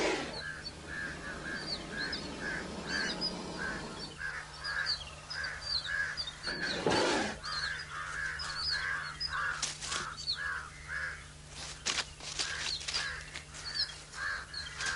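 Wild birds calling: a regular run of harsh calls, about three a second, with quick higher chirps over them. Two louder rustling bursts break in, one at the start and one about seven seconds in.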